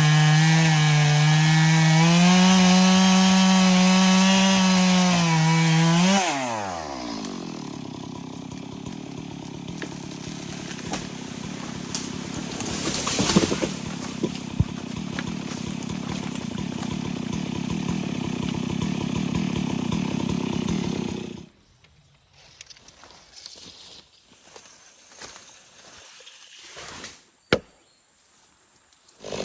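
Stihl MS 382 two-stroke chainsaw running at full throttle, then the throttle is released about six seconds in and the engine note falls away steeply. A lower, rougher noise with a few sharp knocks follows, and from about 21 s it goes nearly quiet apart from scattered clicks and one sharp snap near the end.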